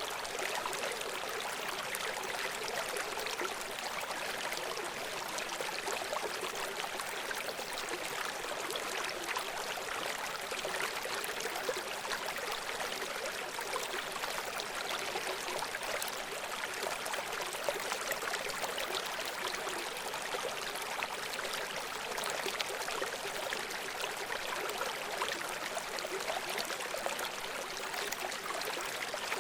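River water running over rocks in a steady, unbroken rush, with fine splashing and bubbling.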